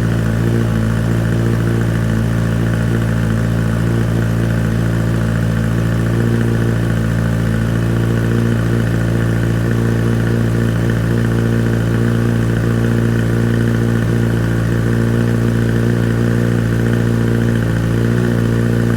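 Kawasaki ZX6R inline-four motorcycle engine idling steadily on a cold engine, through an Arrow Pro Race exhaust with the dB killer fitted.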